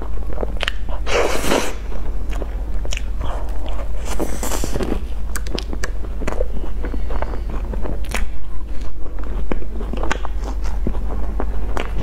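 Close-miked eating of a soft cream-filled bun with a crumbly topping: bites and chewing with many small mouth clicks and crumb crackles, and two fuller bites about a second in and near the middle.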